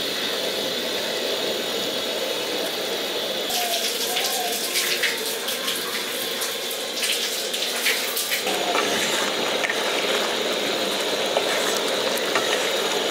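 Spiced yoghurt gravy boiling in a pan, a steady bubbling hiss. From about three to eight seconds in, a spatula scrapes and clicks against the pan as the fried paneer is stirred in.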